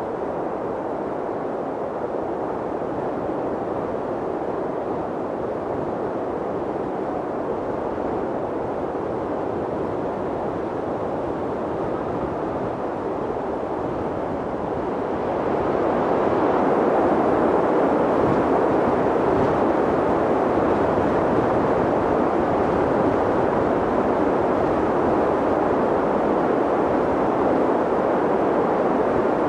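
Mountain wind blowing steadily, a dull, even rushing noise that grows stronger about halfway through and holds there.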